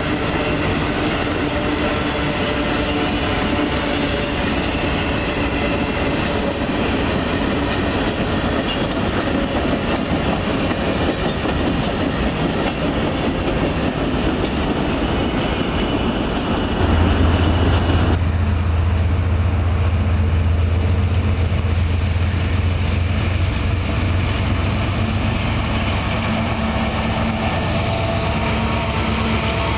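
Covered hopper cars of a freight train rolling past with a dense clatter of wheels on rail. About 17 seconds in, this gives way to the steady low rumble of an approaching CSX General Electric diesel locomotive, which becomes the loudest sound.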